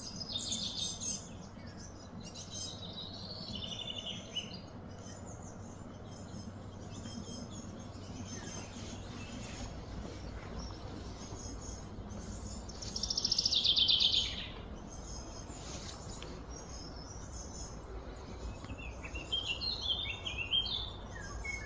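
Birds chirping and trilling over a steady low background rumble. The loudest is a fast high trill lasting about a second and a half, around thirteen seconds in, followed by a run of quick chirps near the end.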